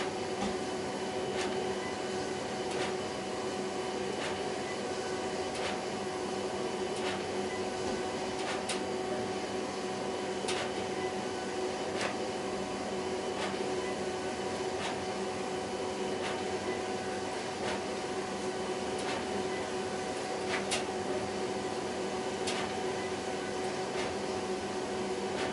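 HP Designjet 5000ps 42-inch large-format inkjet printer printing: a steady mechanical whir with a held hum, broken by a sharp click about every one and a half seconds.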